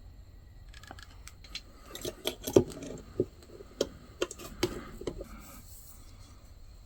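A quick run of about a dozen sharp metallic clicks and taps as wire coat hanger is worked into a latch loop on a pair of steel Boker hand shears.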